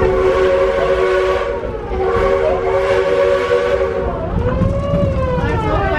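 Steam locomotive whistle blowing two long chord blasts, followed near the end by a wavering tone that rises and falls in pitch.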